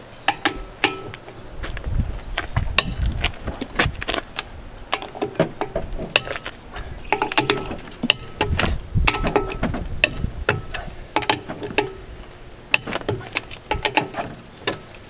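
Half-inch drive breaker bar and steel socket working a trailer wheel's lug nuts, with many sharp metal clicks and clanks as the nuts are broken loose one by one.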